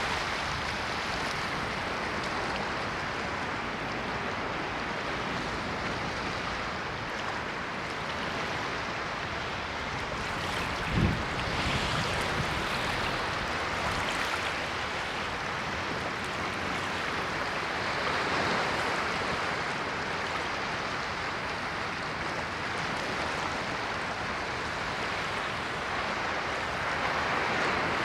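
Ocean surf: waves washing in as a continuous hiss that swells and eases every few seconds, with one brief low thump about eleven seconds in.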